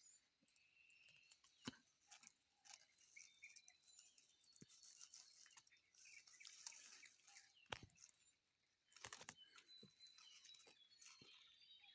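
Near silence: faint rustling and a few sharp clicks, with faint bird chirps in the background.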